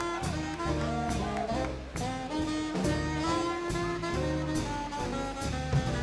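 Swing big band playing live: saxophones and brass holding chords over a steady drum beat of about two strikes a second.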